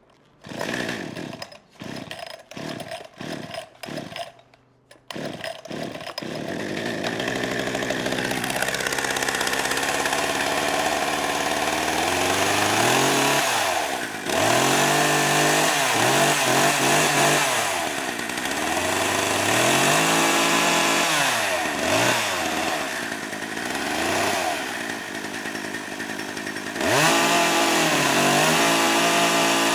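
Two-stroke gasoline chainsaw: several short sputtering bursts as it is started, then it runs continuously, revved up and down again and again, and held at high revs near the end.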